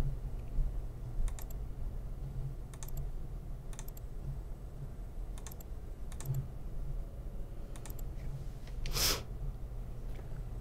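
Sparse clicking at a computer while browsing images, one click or quick double click every second or so, over a low steady electrical hum. A short breathy puff of noise about nine seconds in.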